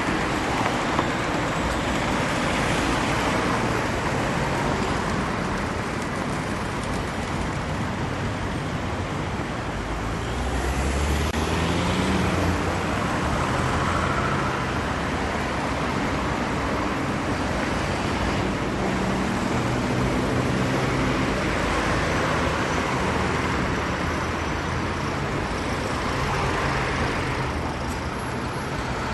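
Steady road traffic noise, with motor vehicles passing: a low engine hum rises about a third of the way in and again around two-thirds of the way through.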